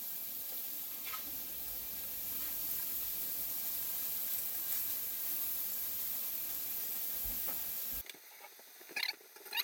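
Pieces of beef steak searing in a hot pan, a steady sizzle left untouched. It cuts off abruptly about eight seconds in, leaving a quieter stretch with a few faint clicks.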